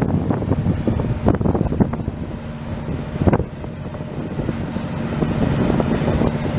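Wind buffeting the microphone in gusts on the open deck of a moving harbour ferry, over the steady low drone of the ferry's engine.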